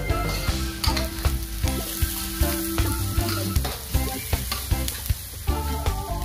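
Sliced onion and minced garlic sizzling in hot oil in a stainless steel wok while being stir-fried, a metal spatula scraping and clicking against the pan many times. Soft background music runs underneath.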